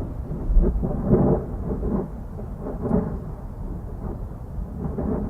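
Low rumbling roar of wind, surging and easing in gusts about once a second, around a wildfire fire whirl.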